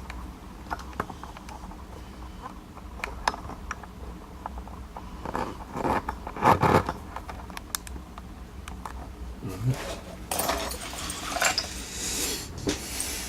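Small metal clicks, taps and scraping of a Zeiss Ikon euro pin-tumbler cylinder being taken apart by hand to remove its pins. There is a louder knock about halfway through and a stretch of scraping near the end.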